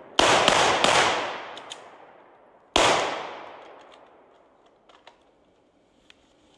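Gunshots during live-fire practice: three quick shots about a third of a second apart, then a single shot roughly two and a half seconds later, each echoing away over a second or more. A few faint clicks follow.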